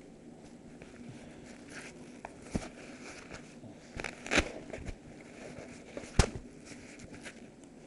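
Cloth rustling and scraping against a concealed recording device as it is moved, with sharp knocks about two and a half, four and a half and six seconds in; the knock near six seconds is the loudest.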